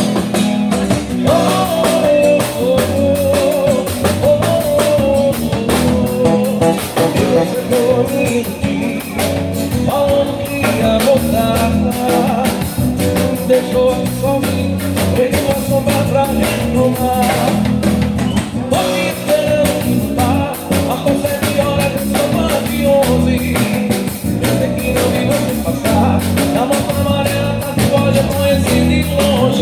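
Live band playing with singing, a drum kit and guitar.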